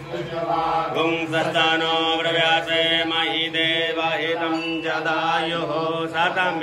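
A man chanting Sanskrit Vedic mantras for the puja in a continuous, sing-song recitation.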